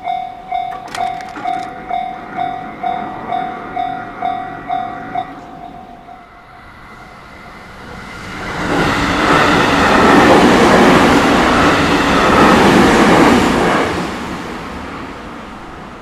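Japanese level-crossing warning bell ringing at about two strokes a second, stopping about five seconds in. Then a JR Tokaido Line train passes the crossing with a loud, steady rush that builds, holds for several seconds and fades near the end.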